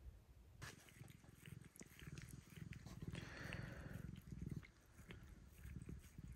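Faint, close sound of a cat grooming, starting about half a second in: quick wet clicks and smacks of its tongue licking its front paw, over a low purr.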